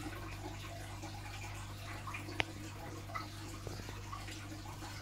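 Aquarium water trickling and splashing steadily over a constant low hum, with one sharp click about two and a half seconds in.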